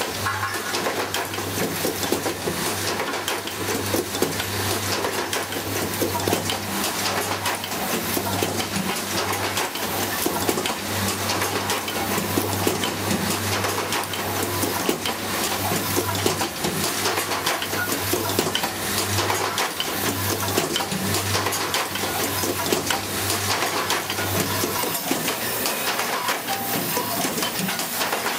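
Automated indexing assembly machine running: a constant clatter and ticking of small plastic parts and metal tooling as the stations cycle, over a steady low hum that cuts out near the end.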